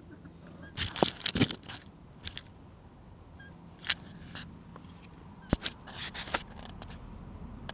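Sharp taps, knocks and scraping close to the camera, bunched about a second in and again around five to six seconds in, as a juvenile American robin forages on gravel beside it and the camera is jostled.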